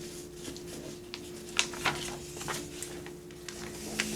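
Folded paper rustling and crinkling in a few short, scattered bursts as a paper airplane model is handled, over a faint steady hum.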